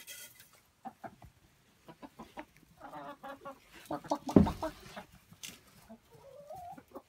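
Hens clucking and calling in short bursts, with a loud thump about four and a half seconds in and a longer wavering call near the end.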